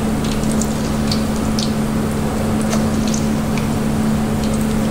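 Batter-coated chicken pieces deep-frying in hot oil in a wok: a steady bubbling sizzle with scattered crackles and pops, over a steady low hum.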